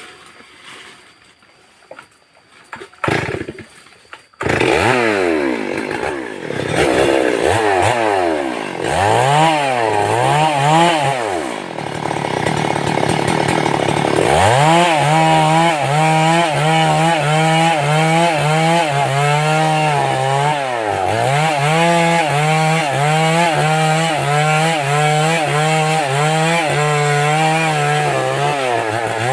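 An old two-stroke chainsaw starts about four seconds in after a few clicks, is revved up and down, and then runs steadily with its engine pitch dipping and recovering about once a second.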